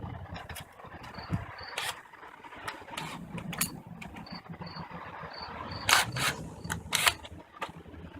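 Scattered sharp clicks and knocks of hand tools being handled, the loudest two near the end.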